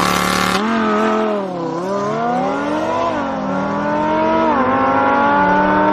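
Lamborghini Huracán's V10 engine launching hard and accelerating away: a harsh burst of noise in the first half-second, then the engine note climbing and dropping back at each upshift, three or four times.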